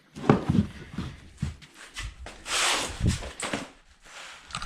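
Handling noise from recovery gear being stowed under a carpeted plywood platform in a vehicle's cargo area: a few scattered knocks, and a longer scraping rustle about halfway through.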